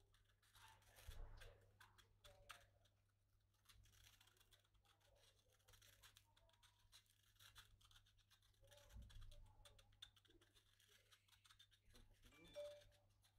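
Faint, irregular scratching and rubbing from hand work on a hulusi's gourd body, with light clicks and a couple of soft handling bumps.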